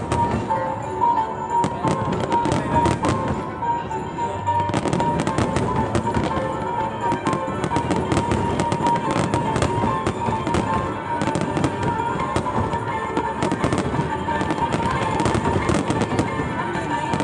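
Fireworks display: dense, rapid crackling pops, many a second, from shells and fountains going off together over a steady hiss.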